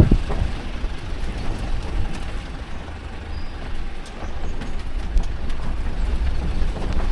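A vehicle driving slowly over a rough dirt driveway, heard from inside the cab: a steady low engine and tyre rumble with occasional light knocks from bumps.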